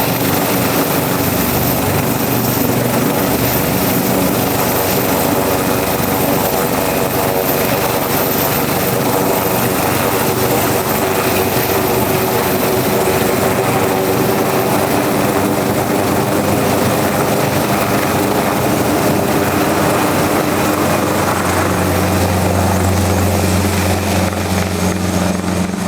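Leonardo AW189 twin-turbine helicopter running loudly, its turbine whine mixed with rotor noise. About 21 seconds in, a strong low steady hum joins it.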